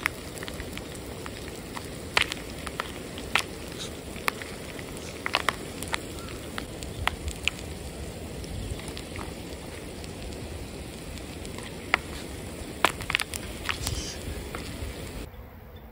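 Popcorn frying in a foil pan of hot oil: a steady sizzle with scattered sharp pops at irregular intervals.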